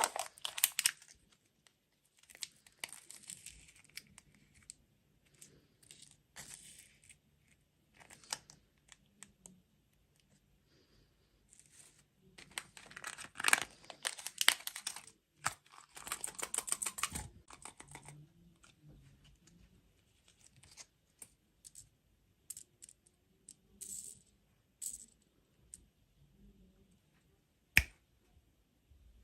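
Intermittent crinkling and tearing of dessert and candy wrappers being opened and handled, with sharp clicks and short gaps between them; a busier stretch comes about halfway through.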